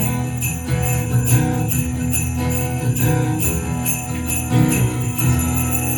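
Sleigh bells shaken in a steady rhythm over a live band playing the instrumental ending of a pop-rock song, with sustained bass notes underneath.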